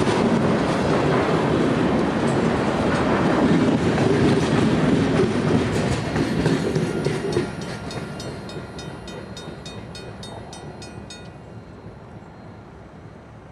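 Freight train tank cars rolling past, wheels clattering on the rails, the rumble dropping away sharply as the end of the train passes about halfway through and then fading into the distance. A rapid ringing, about four to five strikes a second, sounds from the crossing bell until it stops about 11 seconds in.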